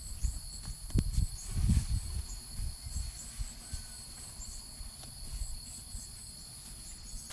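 Insects chirping: steady high-pitched trills with short chirps repeating a few times a second. Under them runs a low, uneven rumble, loudest between about one and two seconds in.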